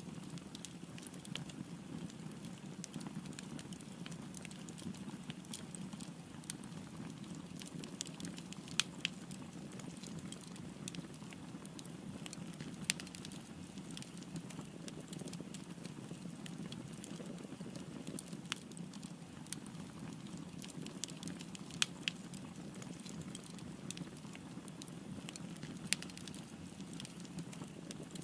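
Wood fire burning: a steady low hiss of flames with scattered sharp crackles and a few louder pops.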